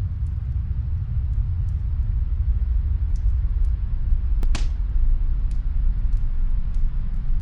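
Snowstorm wind as a steady low rumble, with scattered faint crackles from a wood fire and one louder pop about two-thirds of the way through.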